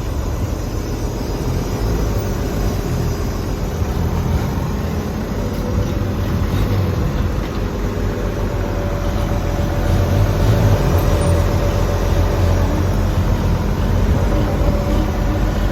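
Isuzu 6BD1 six-cylinder diesel of a Hitachi EX200-2 hydraulic excavator idling steadily with a deep, even rumble.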